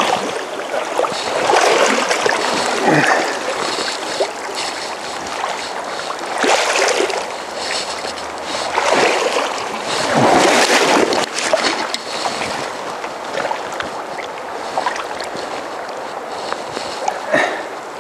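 Fast, shallow river water rushing over stones, with several louder splashes about 1 to 3 seconds in, around 6 to 11 seconds in and near the end, while a hooked trout is fought in the current.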